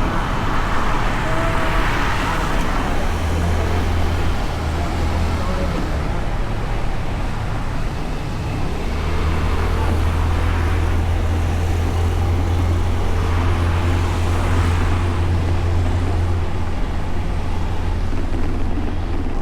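Honda Beat scooter on the move, heard from its bike-mounted action camera: a steady low engine drone under rushing wind and road noise, with the drone swelling for several seconds in the middle.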